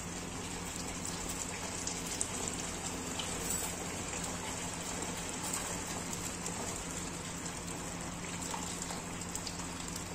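Tomato masala sizzling in a kadhai over a gas flame, a steady even hiss.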